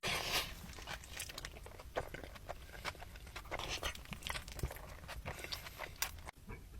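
Close-up eating sounds of a large burrito being bitten and chewed: a steady run of short, crackly, wet mouth noises.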